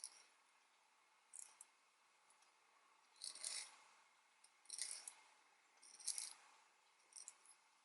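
Faint, irregular short clicks and scraping rustles, about six of them spread across several seconds, with near silence in between.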